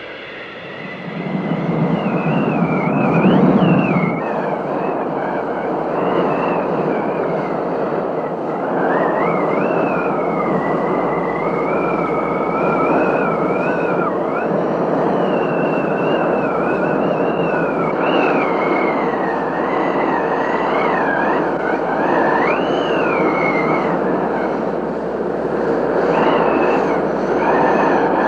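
Wind sound effect: a steady rush of wind with a whistling howl that wavers up and down in pitch, swelling about a second in.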